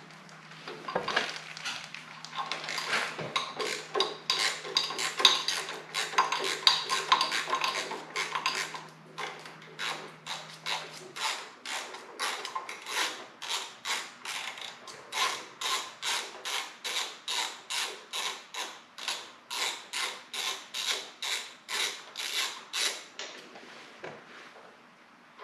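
Hand ratchet on an extension backing out a plate bolt on the motorcycle's transmission mounting: the pawl clicks in dense runs at first, then settles into steady back-and-forth strokes of about two a second that stop near the end.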